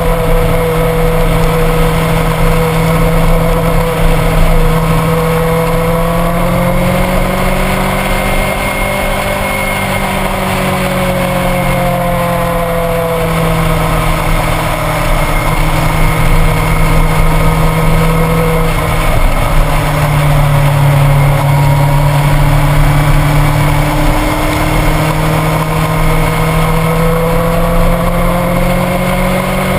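Motorcycle engine running at road speed, its pitch rising and falling gently as the rider eases on and off the throttle, over a steady rush of wind and tyre noise.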